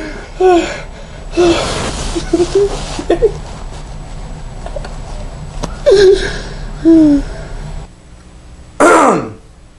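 A group of young people laughing, gasping and calling out in short bursts. A loud call slides steeply down in pitch about nine seconds in.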